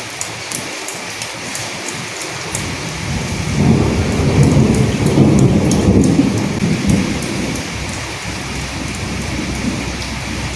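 Steady rain falling, with drops pattering close by, and a roll of thunder rumbling in from about three seconds in and fading away about seven seconds in.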